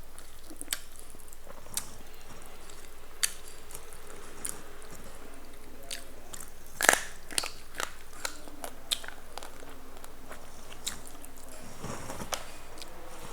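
Someone chewing food: scattered small clicks and crunches, with a louder cluster about seven seconds in.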